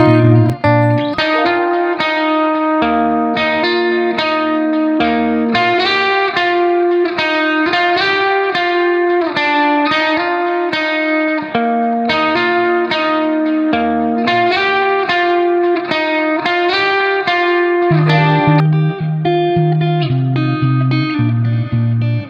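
Background music played on guitar: a run of plucked notes over a recurring low bass line.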